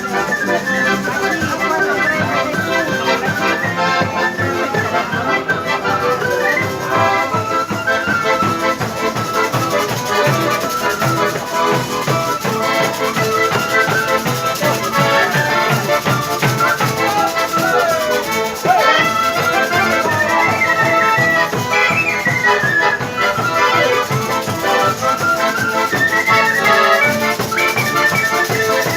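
Music with a steady beat throughout.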